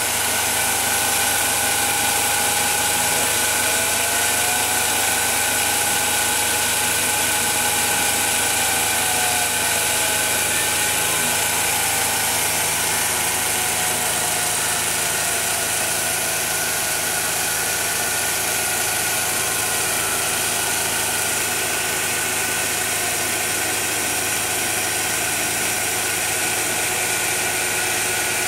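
CNC milling machine running steadily while milling a cam lobe, a constant mechanical hum and hiss with a few tones that slide up and down in pitch as the machine moves.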